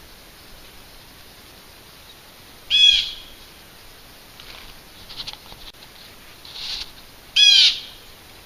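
An unidentified animal's loud, shrill call, sounded twice about four and a half seconds apart. Each call is a quick run of rapidly repeated curved notes lasting about half a second, with fainter calls between the two.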